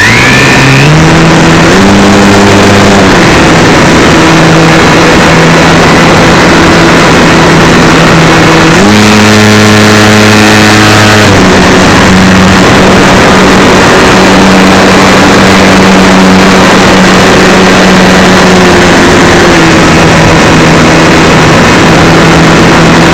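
Super Cub RC plane's electric motor and propeller heard from the onboard camera, with a loud steady hum over wind rush. The motor's pitch steps up briefly near the start and again for about two seconds midway as the throttle is opened, then drops back.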